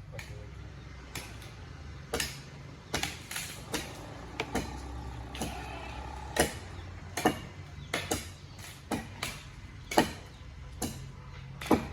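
Irregular sharp knocks, one or two a second, over a low steady hum.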